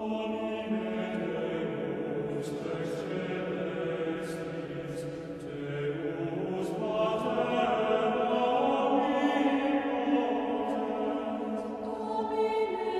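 Choir singing slow, sustained chant, the held notes moving in pitch every second or two.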